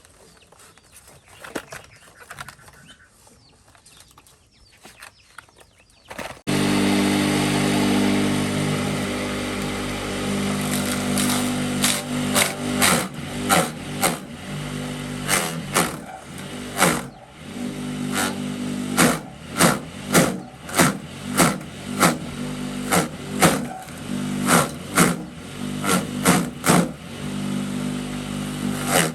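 Faint clicks and rustles, then an engine starts running suddenly about six seconds in and keeps a steady note. From about eleven seconds on, regular sharp knocks come through it, one or two a second.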